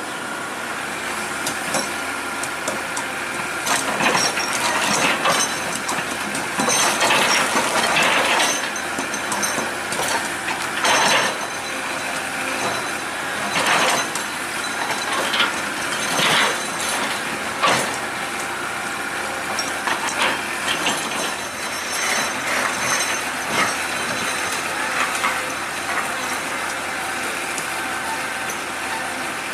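Excavator working: a steady mechanical noise broken by irregular bursts of clanking and scraping, each about a second long, most of them in the first two-thirds.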